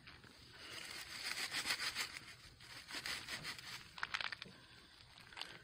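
Dry leaves crackling and rustling as they are handled and stepped in, densest in the first half, with a sharper click about four seconds in.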